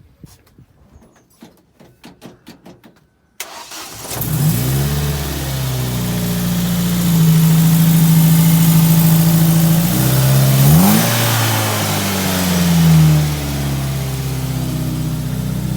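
Ford Focus ST170's 2-litre four-cylinder engine starting on its last run before removal: a few faint clicks, then about three seconds in it fires and revs up before settling into a steady fast idle. It is blipped sharply about two-thirds of the way through, swells once more shortly after, then settles back to idle.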